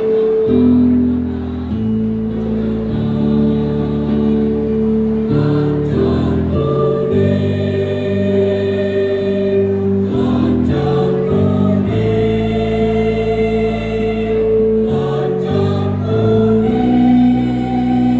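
Choir singing in harmony, moving through held chords that change every second or two.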